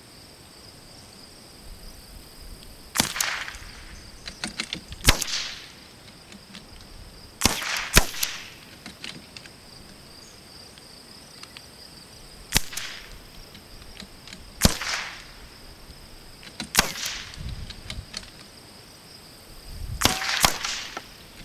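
Shots from two .22 LR bolt-action rifles, a Savage B22 Precision and a Vudoo V22, fired at irregular intervals: about nine sharp cracks over twenty seconds, two in quick succession near the end. Lighter clicks fall between the shots.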